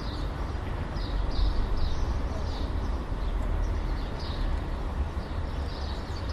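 City ambience: a steady low rumble of distant traffic under a general noise bed, with small birds chirping now and then.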